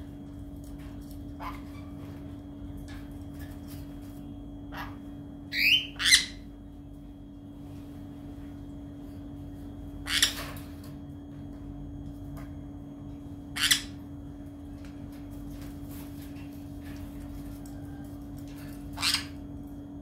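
Pet parrot giving short, harsh squawks: a quick pair about six seconds in, then single loud calls spaced several seconds apart, with a few fainter calls between them.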